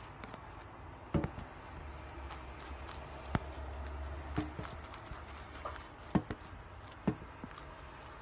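Rabbit chewing a leafy green stem: a run of small crisp crunches and clicks, with a few louder snaps.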